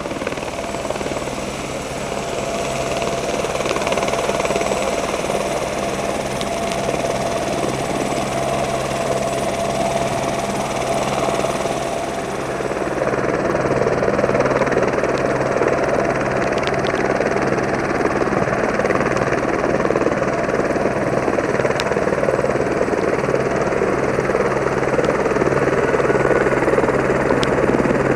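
AS350 Esquilo police helicopter running on the ground with its main rotor turning: a steady turbine and rotor noise that gets louder about halfway through.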